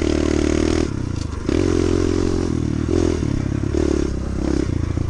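Kawasaki KLX110 pit bike's small four-stroke single-cylinder engine being ridden: its note climbs slightly, drops off about a second in, then comes back as a run of short throttle surges.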